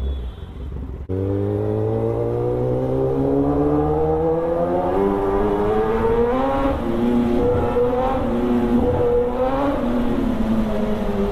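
Kawasaki ZX-10R's inline-four engine pulling hard under acceleration. It comes in abruptly about a second in, and its note climbs steadily for several seconds, dips briefly about two-thirds through, then falls near the end.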